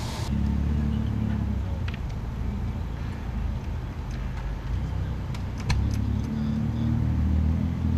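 A vehicle engine idling with a steady low hum, with a few light metallic clinks, the sharpest of them about two-thirds of the way through.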